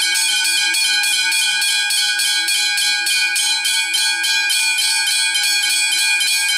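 Several railway level crossing bells ringing together, their rapid strikes overlapping into a continuous, loud clangour of steady ringing tones.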